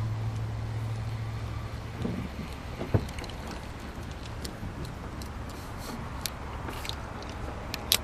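Low steady hum of a small boat's electric trolling motor, which stops about two seconds in. Light clicks and taps of a lure and spinning reel being handled follow, with a sharp knock about three seconds in and a louder click near the end.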